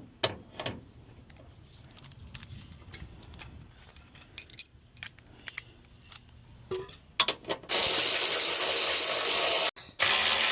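Light, scattered clicks and clinks of metal parts and tools being handled. About three-quarters of the way in, a loud, steady rushing noise starts and cuts out for a moment near the end.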